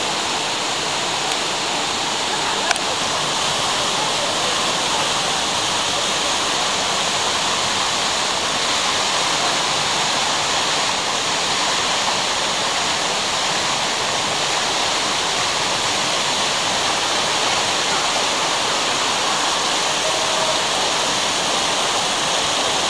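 Fountain water cascading over basin edges and sculptures into shallow pools, a continuous, even rush of splashing water. A single brief tick is heard about three seconds in.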